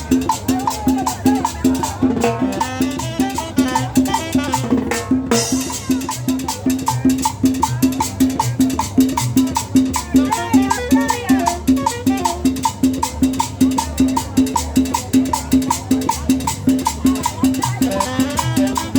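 Cumbia music with a steady, repeating percussion beat, briefly breaking off about five seconds in.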